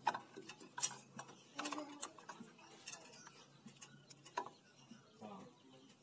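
Irregular small clicks and taps as hands work a bare wire end into a motorcycle's front brake-light switch at the handlebar, about a dozen scattered ticks.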